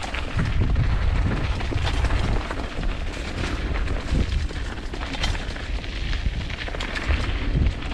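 Mountain bike descending a rough trail: a heavy, continuous rumble of wind on the microphone, with quick irregular clatters and knocks from the bike and tyres going over rocks and roots.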